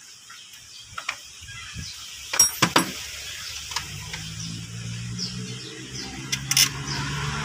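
Scattered sharp clicks and clacks of plastic and metal parts being handled on top of a diesel engine, the loudest cluster about two and a half seconds in and another near the end. Underneath, a low engine hum of another vehicle grows steadily louder.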